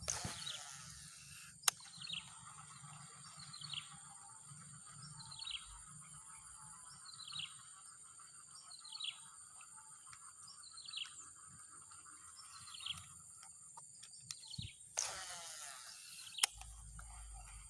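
A bird repeating a short, falling call every second and a half or so, over a steady high buzzing of insects. A brief rushing noise comes at the very start and again near the end.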